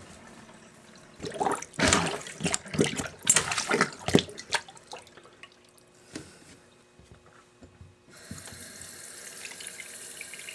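Water sloshing and gurgling in a slow-draining bathroom basin for a few seconds as it is worked with a cup plunger. About eight seconds in, the tap is turned on and runs steadily into the sink.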